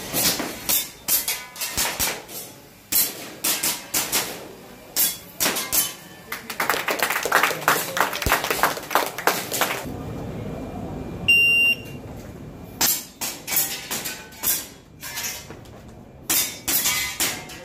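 Gas airsoft pistol shots fired in quick strings, sharp cracks and clicks with target hits among them. A shot timer beeps once about 11 seconds in.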